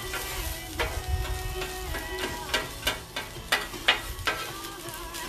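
Taco meat sizzling on a Blackstone 28-inch flat-top griddle, nearly done, with about seven sharp clacks of a spatula on the steel top as it is stirred, the loudest near the middle.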